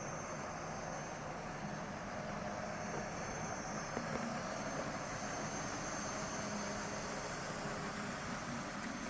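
N scale model train running along the layout's track: a steady faint whirring hiss with a low hum.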